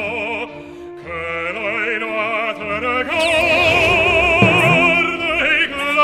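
Operatic singing with a strong vibrato over orchestral music, swelling fuller and louder about three seconds in.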